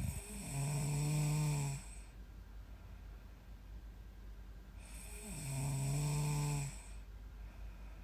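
A young woman snoring in her sleep: two long snores, each about a second and a half with a steady low pitch, about four seconds apart.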